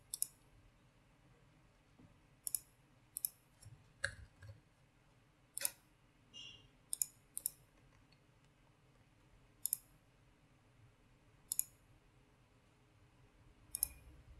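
Computer mouse clicking: a dozen or so short, sharp clicks at irregular intervals, some in quick pairs, over a faint room hiss.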